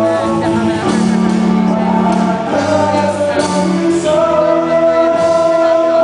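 Live rock band playing loudly, with a singer. Long held notes and chords change every second or so.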